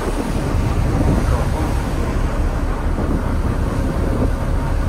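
Steady rumble of a ferry under way, heard from its open side deck, with water rushing along the hull.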